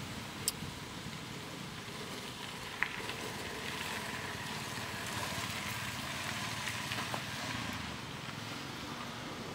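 Steady background hiss of open-air ambience, with a few short faint clicks.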